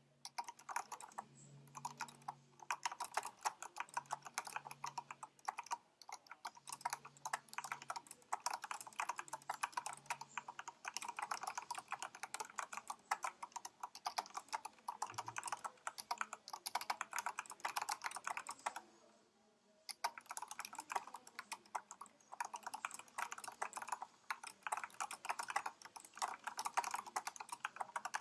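Fast, continuous typing on a HyperX Alloy Elite RGB mechanical keyboard with Cherry MX Brown tactile switches on an aluminium plate and thick PBT keycaps, the keys clacking rapidly. The typing stops for about a second about two-thirds of the way through, then carries on.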